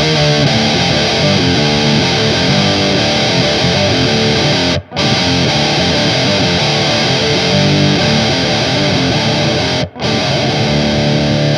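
Electric guitar (an Epiphone 335 with a PAF-style bridge pickup, in drop D tuning) playing a heavy riff through a Digitech Grunge distortion pedal. The riff breaks off briefly about five seconds in and again about ten seconds in, while the pedal's HIGH knob is turned for a darker tone.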